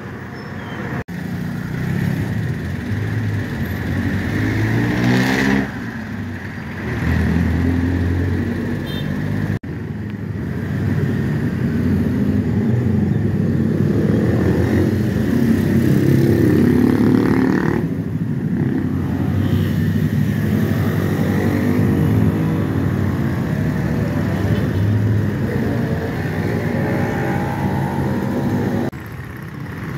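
Street traffic, mostly motorcycle and car engines passing and speeding up, their pitch rising and falling as vehicles go by. The sound breaks off abruptly about a second in and again near ten seconds.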